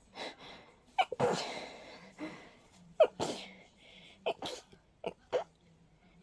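A person's rapid fit of sneezes brought on by a cold and a stuffy, sensitive nose: a big sneeze about a second in with a long noisy breath after it, another about three seconds in, then several quicker, sharper ones near the end.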